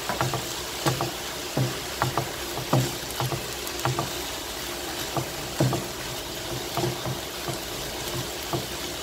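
Chicken and vegetables sizzling steadily in a frying pan over a high flame, with a wooden spatula knocking and scraping against the pan about once or twice a second as it stirs.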